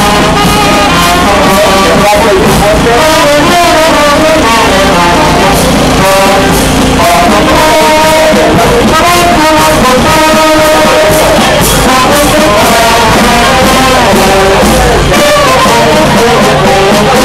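Loud music led by brass instruments, a melody that carries on without a break.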